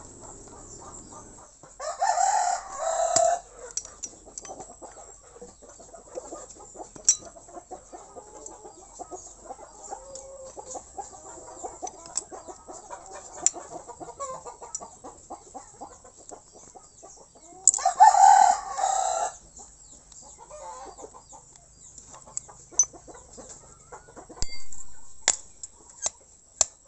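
A rooster crowing twice, once about two seconds in and again about eighteen seconds in, each crow lasting about a second and a half. Scattered faint clicks and taps fall between and after the crows.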